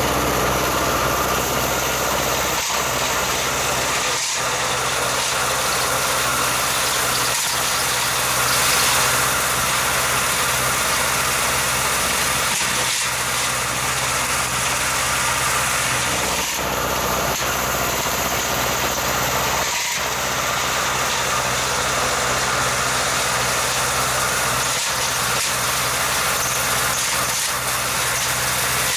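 Xingtai 180 mini tractor's diesel engine running steadily while it mows with a drum mower. A few short, sharp knocks break the drone here and there.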